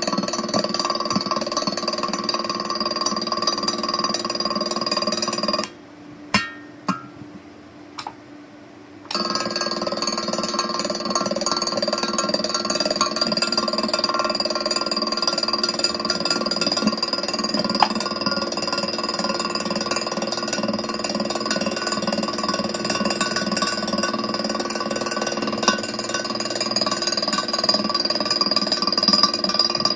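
1800A welding machine running during welding, a steady buzzing hum with a crackling hiss. It cuts out about six seconds in for about three seconds, with a few sharp clicks in the gap, then starts again and runs on steadily.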